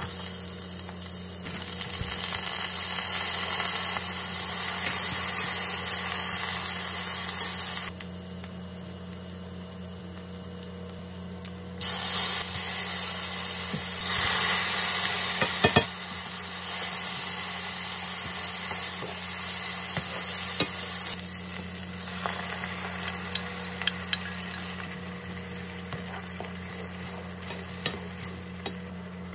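Diced onion sizzling in hot oil in a frying pan, then a tomato-and-cream sauce sizzling as a spatula stirs it, with light scrapes and taps on the pan. The sizzle jumps up and down in level several times.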